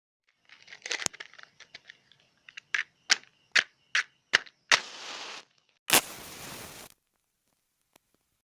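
Matchbox handled with small rattles and clicks, then a match struck against the box's striking strip in about six quick scrapes before it catches and flares with a short hiss. About a second later another match is struck and flares with a hiss lasting about a second.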